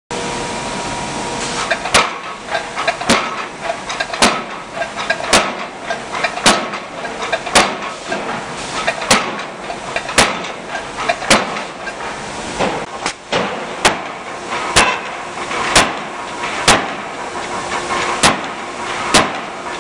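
Forging hammer striking red-hot steel wrench blanks in the dies, about one sharp blow a second with a short ring after each, over a steady hiss of shop noise.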